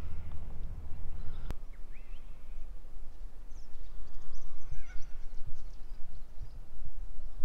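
Wind rumbling on the microphone, with birds calling and chirping in scattered short notes.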